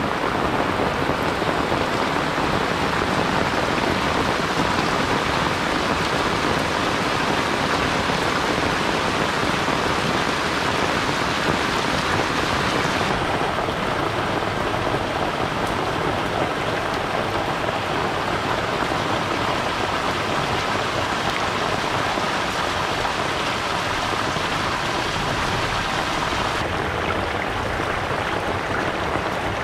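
Heavy rain falling steadily on clay roof tiles and leaves, with runoff pouring from the eaves and muddy water running along a concrete drainage channel. The higher hiss changes abruptly about 13 seconds in and again near the end.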